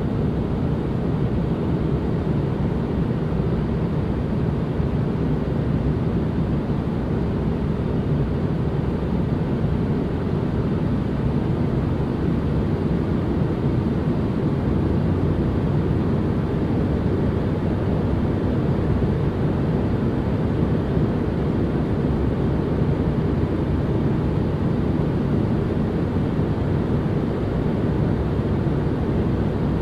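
Steady white-noise ambience, weighted low: a deep, even rumble with little hiss.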